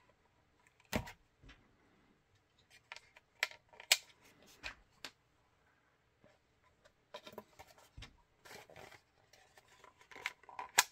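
Hands handling a carbon-fibre-pattern plastic holster shell and fitting small screws and spacers to it: scattered sharp clicks and taps of plastic and hardware with soft rubbing between, the loudest clicks about a second in, near four seconds and just before the end.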